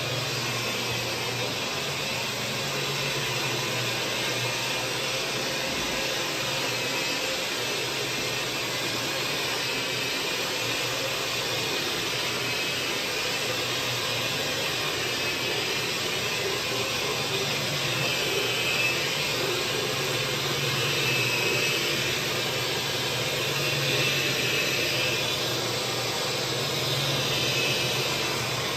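Carpet-cleaning hot water extraction wand under truck-mount suction: a steady rush of air. In the second half it swells and eases about every three seconds.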